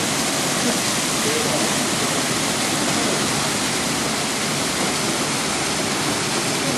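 Hot-spring water of Kusatsu's Yubatake pouring over rocks into a pool: a steady, loud rush of falling water, with faint voices of people under it.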